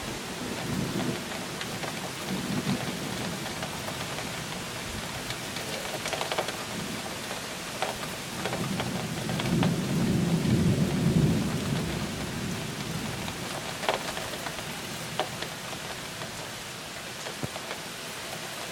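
Heavy rain falling steadily through a thunderstorm, with thunder rumbling under it. The longest and loudest roll of thunder comes about nine seconds in and lasts some three seconds, after two fainter rumbles in the first few seconds. A few sharp taps of drops land close by.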